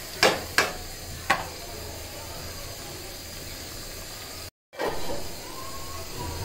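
Chicken and potato curry sizzling steadily in a black iron kadai over a gas burner. Three sharp knocks in the first second and a half, a spatula tapped on the pan's rim.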